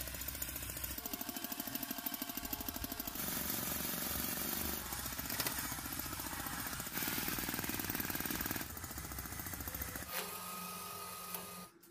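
A homemade scale-model 4x4 tractor running as it pulls a loaded sled through sand: a fast, even mechanical pulsing that shifts in character a few times. About ten seconds in it gives way to a steadier hum with a thin high whine.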